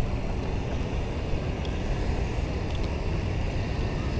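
Steady rumbling wind and road noise on the microphone of an action camera carried on a moving bicycle.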